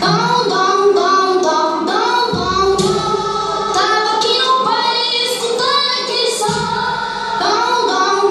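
Recorded song with high singing voices over music, played for dancing; the deep bass drops out for stretches, comes in briefly about two and a half seconds in, and returns about six and a half seconds in.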